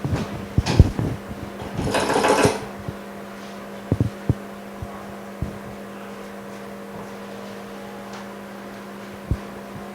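Small knocks and clicks from parts and tools being handled on a workbench, with a short hissing rush about two seconds in, over a steady electrical machine hum.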